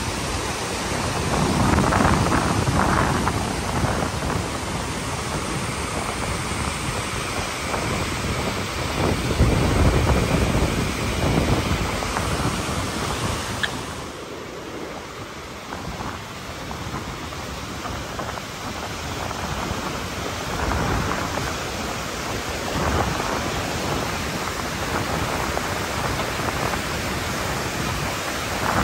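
Steady roar of white-water rapids in a fast mountain river, with a few louder low rumbling surges; the roar drops somewhat about halfway through.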